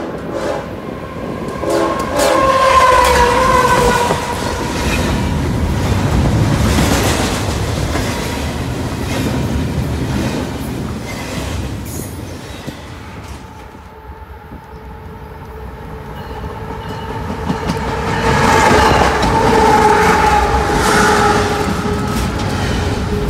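Train horn chord sounded about two to four seconds in as a train approaches, its pitch sagging slightly as it nears. After a quieter stretch, a Union Pacific freight locomotive's horn sounds again for several seconds while the train passes close by, over the rumble and clatter of double-stack container cars rolling past.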